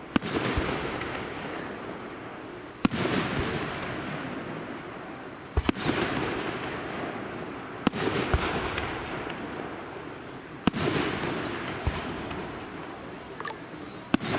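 Aerial firework shells bursting one after another, a sharp bang about every two to three seconds, six in all, each followed by a crackle that fades away.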